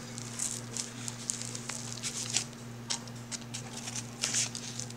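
A plastic package being handled and cut with scissors: scattered snips, clicks and short bursts of crinkling, over a steady low hum.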